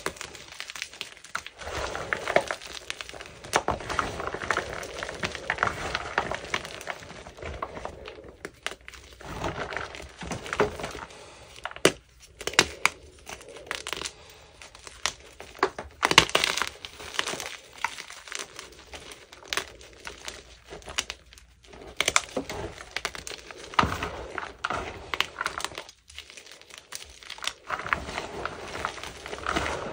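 Hands crushing and crumbling chunks of gym chalk: irregular crunching with sharp crackles and snaps. It comes in bursts with short pauses between them, and the loudest crunch is about halfway through.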